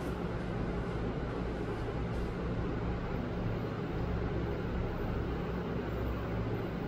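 Steady low hum with an even hiss of room background noise, unchanging throughout, with no distinct sounds.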